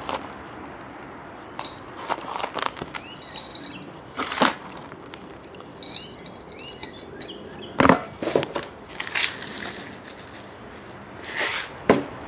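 Gravel and gritty potting mix being handled in a plant pot: scattered sharp clicks, scrapes and rustles of small stones and grit, with the loudest knocks about four, eight and twelve seconds in.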